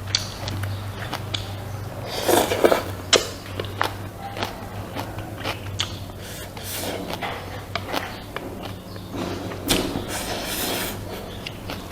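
A person eating rice and pork soup close to the microphone: chewing and mouth noises with irregular sharp clicks and short bursts, over a steady low hum.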